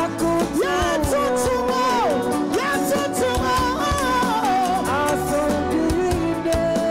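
Live gospel music: a woman sings lead into a microphone over a band of bass guitar, drum kit and keyboard, her melody holding and sliding between notes.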